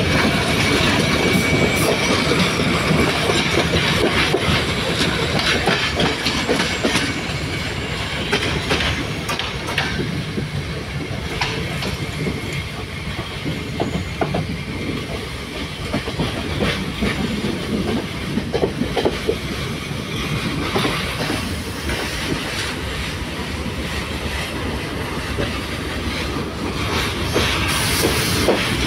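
Passenger train carriage running along the track, heard from its open doorway: a continuous rumble of wheels on rails with rapid clacking over the joints. It is a little quieter through the middle and louder again near the end.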